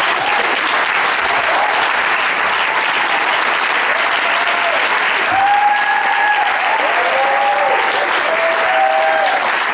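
Theatre audience applauding steadily, with a few short whoops rising over the clapping from about four seconds in.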